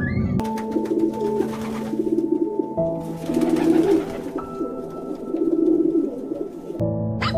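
Birds cooing: several low, warbling phrases in turn, over background music with steady held tones.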